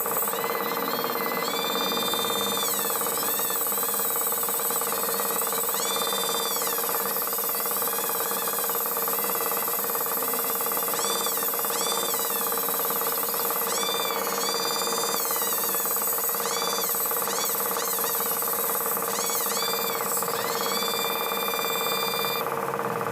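High-speed rotary grinder porting the cylinder of a Suzuki Satria two-stroke engine block. It runs continuously, and its high whine repeatedly dips and recovers as the bit is pressed into the metal.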